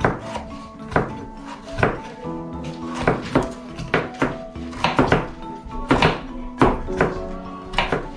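Background music with a knife chopping an onion on a wooden cutting board: irregular sharp knocks, about one to two a second.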